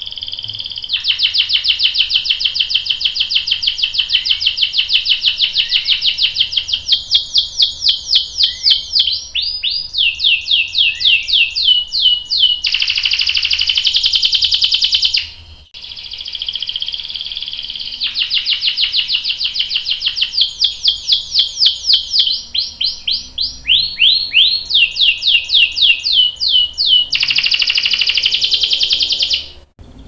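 Domestic canary singing in two long bouts of rapid rolling trills. Each bout moves through several quick repeated-note phrases and ends in a dense buzzy roll, with a short break about halfway through.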